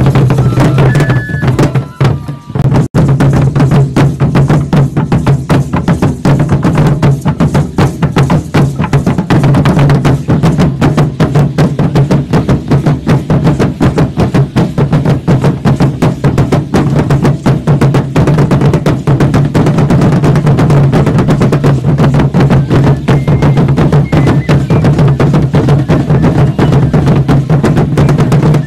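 Drumming for an Aztec (Mexica) ceremonial dance: a big drum keeps a steady beat under a dense clatter of percussion, with a brief dip about two seconds in.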